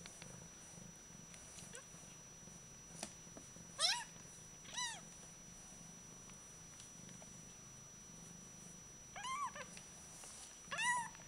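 Very young silver Bengal kittens mewing: short, high, thin calls that rise and fall in pitch, one about four seconds in and another a second later, then a quick run of calls near the end. A steady low purr runs underneath.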